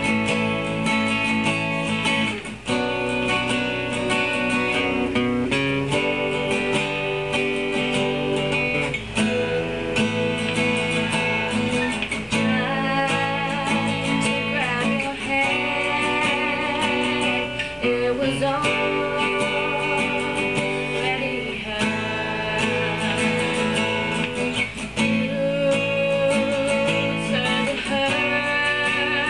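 Acoustic guitar played in chords, with a woman singing over it.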